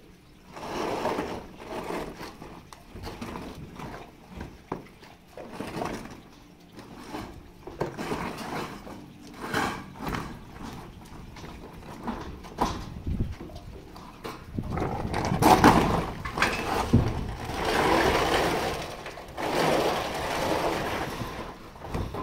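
A corrugated metal roof sheet being dragged and slid into place over metal roofing, scraping and rumbling in irregular swells with scattered knocks. It grows louder about two-thirds of the way through.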